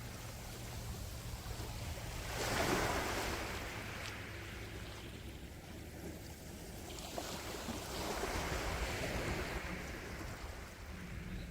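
Sea waves washing onto the shore, one swelling and breaking about two and a half seconds in and another washing in more broadly about eight seconds in, over a low steady rumble of wind on the microphone.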